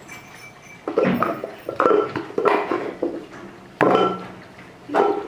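Pots, pans and utensils being handled: a series of about five clatters and clinks, each ringing briefly.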